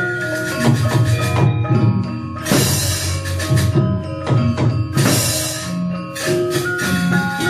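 Gamelan ensemble accompaniment to a wayang golek puppet play: ringing mallet-struck metallophones and gongs over a drum. Twice, about two and a half and five seconds in, a loud clashing metallic crash lasts under a second.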